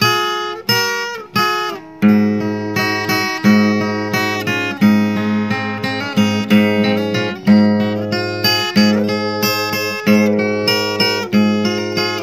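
Background music: an acoustic guitar strummed in a steady rhythm.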